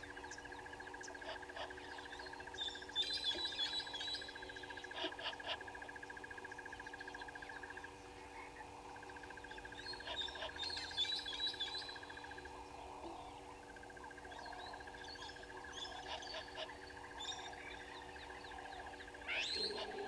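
Bush dawn chorus: birds chirping in two bursts, a few seconds in and again about halfway, over a steady, fast-pulsing trill that breaks off twice.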